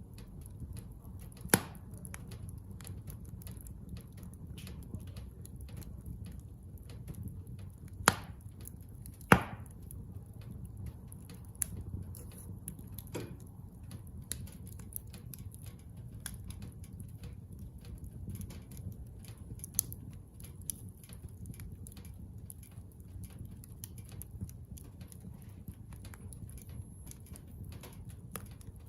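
Bonfire of scrap building lumber crackling, with many small pops and a few louder snaps, one trailing off in a short falling hiss, over a low steady rumble.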